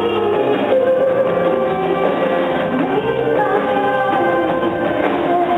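Live rock music from a concert: a woman singing with her band, a steady full mix with held, sliding sung notes.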